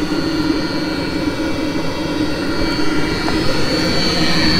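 Diesel-fired auxiliary heater of a 2003 Mercedes Sprinter running at full burn after start-up, with a steady jet-engine-like rush and a high whine, getting slightly louder near the end.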